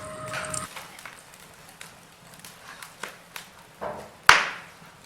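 Wood fire of burning logs crackling, with scattered small pops and one loud, sharp crack about four seconds in.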